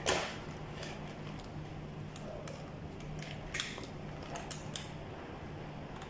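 Light handling clicks and knocks as a clamp meter and its test leads are picked up and handled, the loudest a short rustling knock at the start, over a steady low hum.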